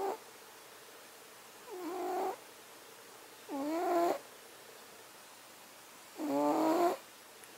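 Domestic cat snoring in its sleep: a pitched, wavering snore with each breath, about every two seconds. Three full snores, plus the tail of one right at the start.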